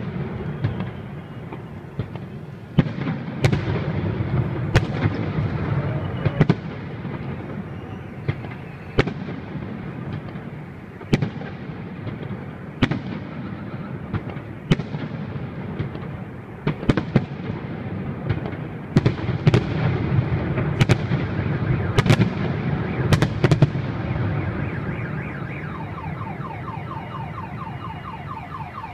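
Aerial firework shells of a fireworks salute going off. There are about twenty sharp bangs at irregular gaps of roughly half a second to two seconds, over a continuous low rumble.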